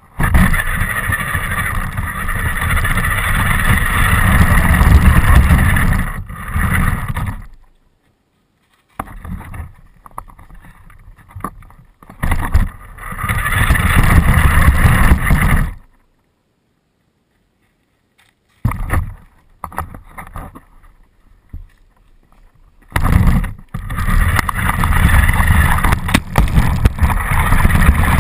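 RC car running hard in three bursts of several seconds each, with rumble and wind on the microphone. Between the bursts it goes quiet or stops.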